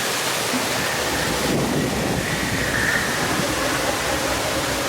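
Steady rushing noise of falling water, a waterfall.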